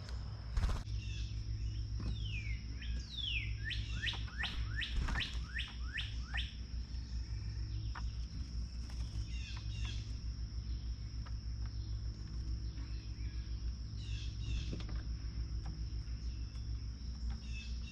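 Songbirds calling: a run of about a dozen quick down-slurred whistled notes, about three a second, a few seconds in, then scattered short chirps.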